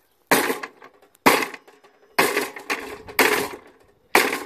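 A long pole striking a petrol lawnmower five times, about one blow a second, each a sharp hit that dies away quickly.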